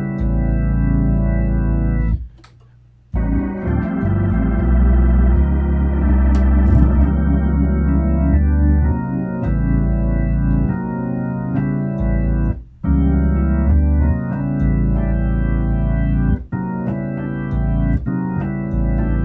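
Hammond A100 organ played through a Leslie Model 45 speaker: sustained chords on the lower manual over bass pedal notes. The chords break off into a pause of about a second, a little over two seconds in, with shorter breaks between chords later.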